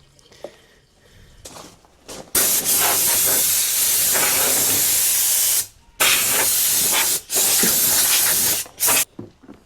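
Pressurised spray hissing in bursts: one long burst of about three seconds, then two shorter ones and a brief final puff.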